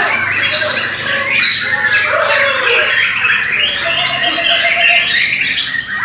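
Bornean white-rumped shama (murai batu) singing loud, varied whistled phrases amid other caged songbirds, a dense tangle of overlapping whistles, trills and chirps.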